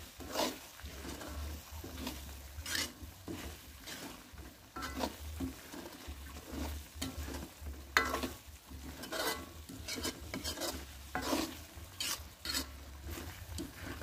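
Metal spatula scraping and stirring thick spice paste in a shallow metal wok, in irregular strokes about every second or two, over a light sizzle of the paste frying. The paste is being sautéed until it is cooked through and dry.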